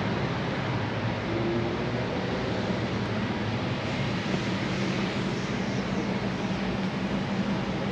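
Suzuki GSX-R600's inline-four engine idling steadily, with no revving.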